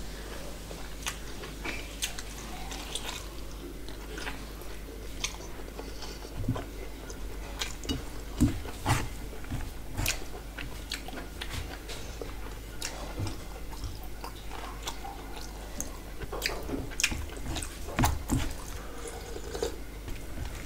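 Close-miked eating sounds: chewing and wet mouth clicks and smacks of someone eating rice and curry by hand, with the squish of fingers mixing rice on a steel plate. The clicks come irregularly and bunch up about halfway through and again near the end.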